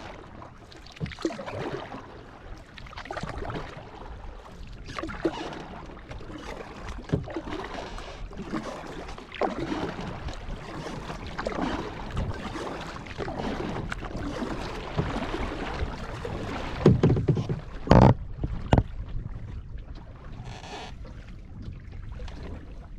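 Kayak paddle strokes dipping and splashing in the water at an irregular pace, with water dripping and lapping at the hull. Near the end, a few sharp, loud knocks stand out.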